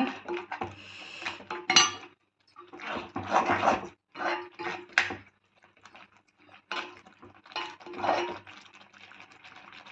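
A cooking spoon stirring and scraping a thick ground-pepper masala paste around a pan as it is sautéed in oil, in irregular bursts with sharp clinks against the pan.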